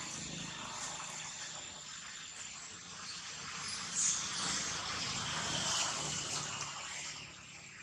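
Outdoor forest ambience: a steady hiss with a thin, high, continuous tone through it, growing louder in the second half, with a brief louder rustle about four seconds in.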